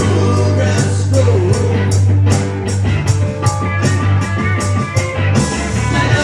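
Band playing an upbeat country-rock song, with guitar over a heavy bass line and a steady drum beat.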